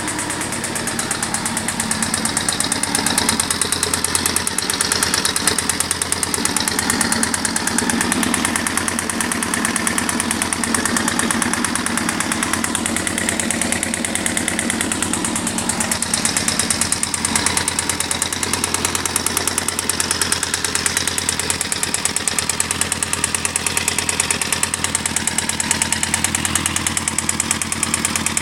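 Engine running steadily with a rapid, regular knock. The knock seems to come from the bottom end, which the owner takes for a worn connecting rod.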